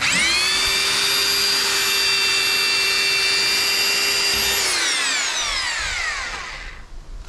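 Makita rotary hammer drilling a hole in a masonry wall in plain rotary mode, without percussion. The motor gives a steady whine for about four and a half seconds, then the trigger is let go and the whine falls in pitch as the motor spins down.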